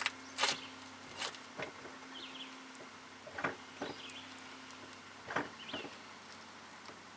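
Faint knocks and clicks, mostly in pairs about every two seconds, from the brake pedal being pumped to push the front caliper piston out, over a steady low hum.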